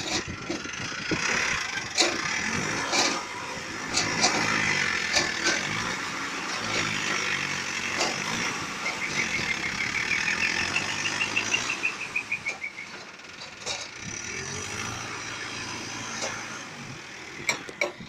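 Backhoe loader's diesel engine running under load, its pitch rising and falling as the front bucket scoops soil and lifts it to tip into a tipper truck. Occasional sharp knocks, and a short run of high chirps near the middle.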